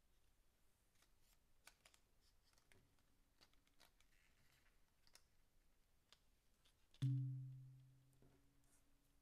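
Faint clicks and crinkles of a clear plastic blister tray being handled as small figure face plates are popped out of it. About seven seconds in, a single low thump rings briefly and fades over about a second and a half.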